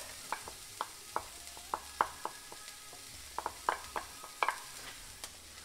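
Wooden spoon tapping and scraping chopped green chile off a ceramic dish into a stainless saucepan, a string of light irregular clicks, over the faint sizzle of rice frying in butter and oil.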